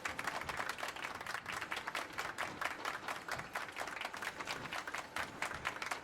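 Applause: many hands clapping steadily in a dense, irregular patter.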